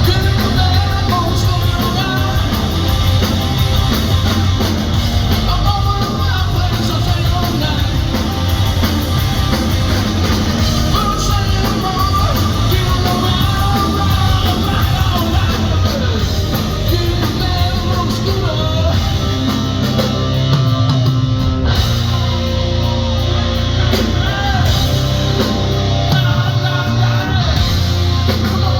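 Live rock band playing loud, with a lead singer.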